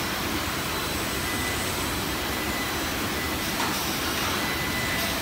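Steady machinery din of a truck-cab sheet-metal shop where industrial robot arms are assembling door panels, with a faint steady high whine over the noise.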